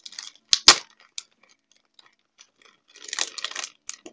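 Clear plastic packaging crinkling as a small carded packet is handled, with two sharp snaps about half a second in, the loudest sounds, and a longer run of crinkling about three seconds in.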